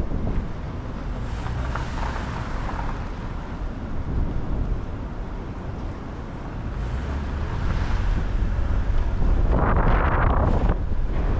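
Car driving on rain-wet city streets: a steady low rumble of road and wind noise on the microphone under an even tyre hiss. A louder hiss swells and fades near the end.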